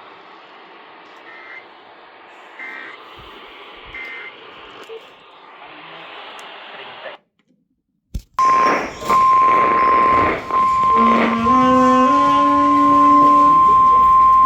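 Faint radio hiss, then a second of dead air and a click, then the loud, steady 1050 Hz NOAA Weather Radio warning alarm tone. The tone signals an incoming severe thunderstorm warning. From about halfway through the tone, a rising series of lower stepped tones sounds under it.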